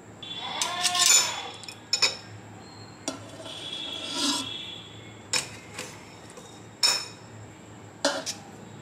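Metal kitchen tongs clinking and scraping against the air fryer basket as pieces of marinated chicken are set in one by one. There are two longer scrapes, around one second in and again around four seconds in, then a handful of short sharp clicks.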